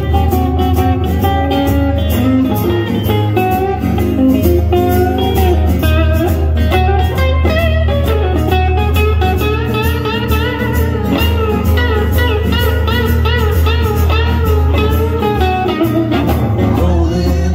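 Live instrumental blues on two guitars: a Les Paul-style electric guitar plays lead lines with bent, wavering notes over a strummed acoustic guitar.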